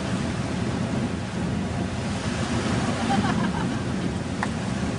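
Steady rush of ocean surf and wind, with wind buffeting the microphone.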